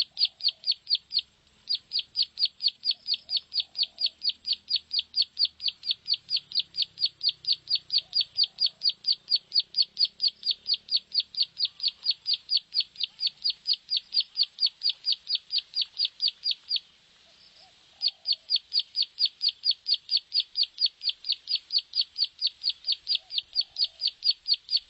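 Plain prinia (prenjak sawah) song played as a lure call: a fast, even run of sharp, high notes, about four to five a second, repeating without let-up. It breaks off briefly just over a second in and again for about a second past the two-thirds mark.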